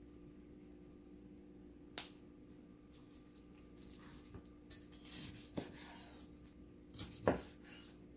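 Sliced steaks and a knife handled on a wooden cutting board: a sharp click, a stretch of rasping and scraping, then two knocks close together, the second the loudest.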